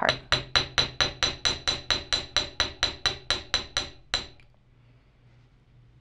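Small jeweler's hammer tapping 18-gauge wire on a solid steel bench block, hammering the top of a wire hook clasp. About twenty quick, even strikes come at roughly five a second, each with a bright metallic ring, and they stop after about four seconds.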